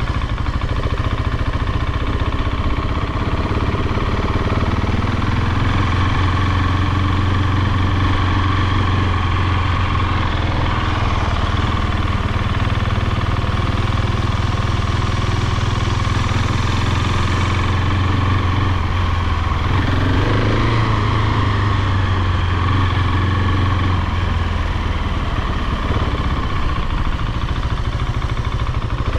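KTM 690 SMC R's single-cylinder engine running at low revs on its stock Euro 5 ECU while the bike is ridden slowly through U-turns, the rider at times pulling the clutch to hold the line. The revs rise briefly about twenty seconds in.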